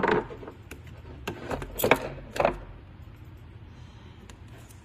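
Thin plastic paint mixing cups and a clear plastic lid being handled: a handful of sharp plastic clicks and knocks over the first two and a half seconds, the loudest about two seconds in, then quiet handling.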